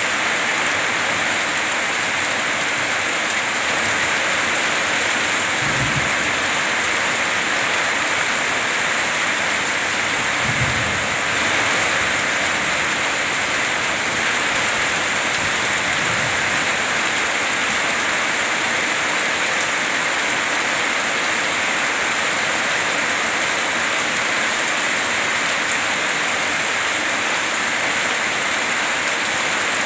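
Heavy tropical rain pouring steadily onto the ground, with water running off a roof edge. Low thunder rumbles briefly about six seconds in and again about eleven seconds in, with a fainter one a few seconds later.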